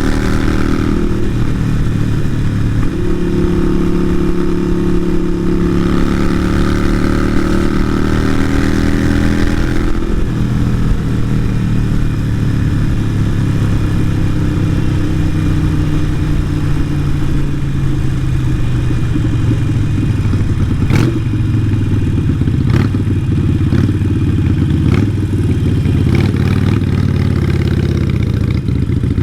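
Harley-Davidson Sportster Iron 883's air-cooled V-twin running through a Vance & Hines exhaust under way, its pitch climbing under acceleration and then dropping sharply about ten seconds in, after which it runs lower and uneven. A few sharp clicks come in the last third.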